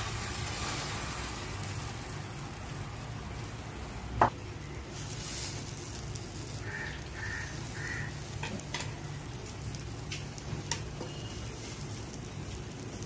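Egg omelette batter with chopped vegetables sizzling gently in a nonstick frying pan. A sharp click comes about four seconds in, with a few lighter clicks later on.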